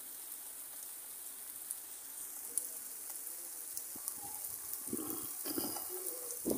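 Steady rain falling, a continuous even hiss of drops, with a few louder sounds breaking in about five seconds in.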